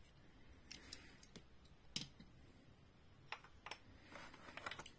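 Faint, scattered clicks and taps of small diecast toy cars and a clear plastic blister tray being handled, the clicks coming closer together near the end.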